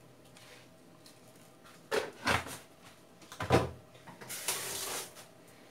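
Kitchen containers handled on a countertop and against a glass bowl while salt is added to chopped onions: a few sharp knocks about two and three and a half seconds in, then a brief hissing rustle of salt being poured near the end.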